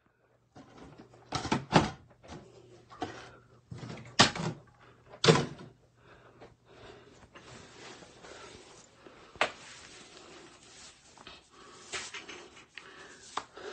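A handful of sharp knocks and bumps, most of them in the first five seconds and one more near the middle, over faint rustling and a low steady hum.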